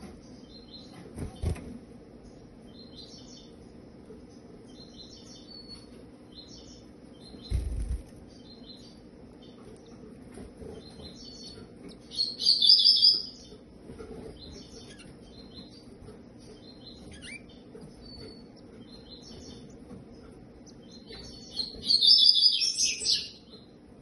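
Double-collared seedeater nestlings begging with rapid high chirping in two loud bursts as the female feeds them. Between the bursts, short high chirps repeat every second or so. Two dull thumps come in the first eight seconds.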